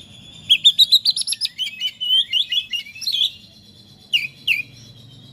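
Oriental magpie-robin (kacer) singing a rapid run of loud, sweeping chirps and whistles, followed by two short downward-slurred notes near the end.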